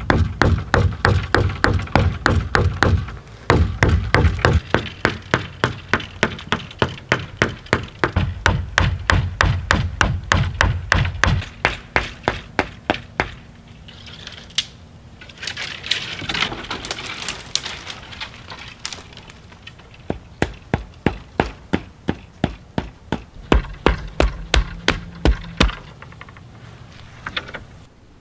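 Hand-held ground-granite stone axe chopping into a green sapling trunk in fast, even blows, about three or four a second. In the middle the blows stop for a few seconds of rustling and snapping brush, then resume.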